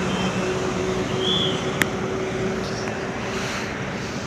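Steady roadside traffic noise with a faint hum, and one sharp click a little under two seconds in.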